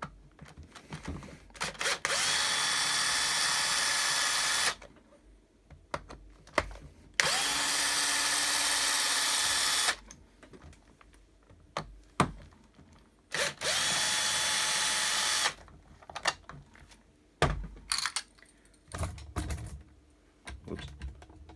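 Power screwdriver backing out three screws from the robot arm's plastic plate: three steady runs of two to three seconds each, the motor spinning up at the start of each, with clicks and knocks of handling between them.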